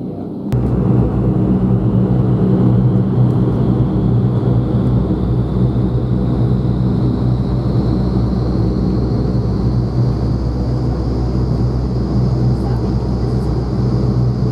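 Indoor skydiving vertical wind tunnel running loud: rushing air over a steady low fan hum, with a faint whine that slowly rises in pitch. The noise jumps up suddenly about half a second in.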